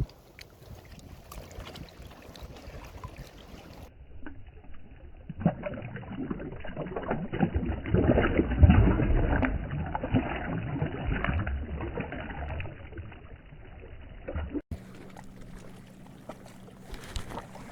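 Water sloshing and splashing close by, strongest in the middle and easing off near the end.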